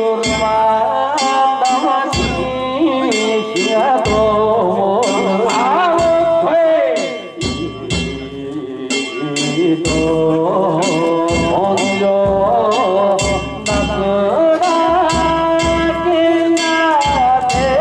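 Danjiri festival music: drums and metal gongs beating in a quick rhythm under a melody of held and gliding notes.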